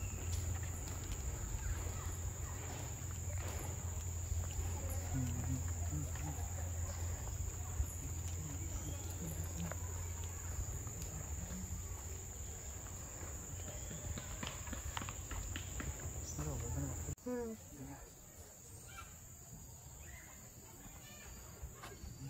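Steady high-pitched insect drone in tropical forest, over a low rumble of wind and handling on the microphone. About three-quarters of the way through, the sound changes abruptly and becomes quieter, with the insect drone fainter and a few short chirps.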